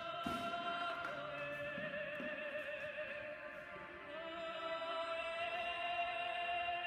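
Operatic singing: a voice holding long notes with a slow vibrato.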